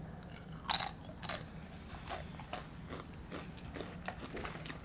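A crisp tortilla chip bitten with one loud crunch less than a second in, then chewed, with smaller crunches every half second or so.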